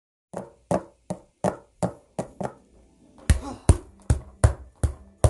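Footsteps for walking toys: a run of sharp taps about three a second. Seven lighter steps come first, then six louder, deeper steps from about three seconds in.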